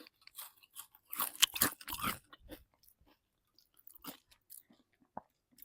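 Crackling, crunching handling noises, thickest about one to two seconds in, then a few scattered light clicks and a sharp tick near the end.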